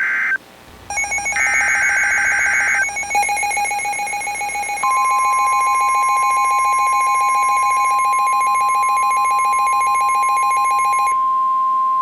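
Emergency Alert System alert tones: the tail of one SAME header data burst, a second burst about a second later, then the buzzing two-tone EAS attention signal. About five seconds in a steady single-pitch NOAA Weather Radio warning alarm tone joins it and carries on alone after the two-tone stops near the end.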